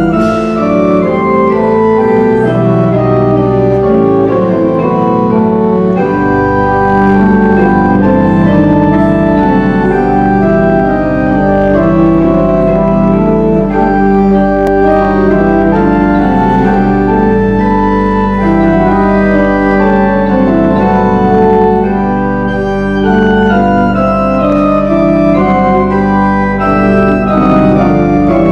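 Two-manual church organ playing a slow piece of sustained chords, with a deep held bass note entering about six seconds in.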